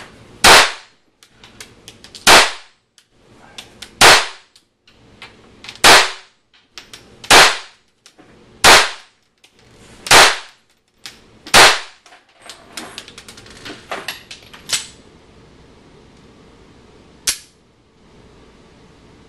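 Compact pistol fired at a steady pace: eight sharp shots about one every one and a half to two seconds, each with a short echo in the indoor range. After the last shot come quieter clicks and metallic clatter, and one more sharp click near the end.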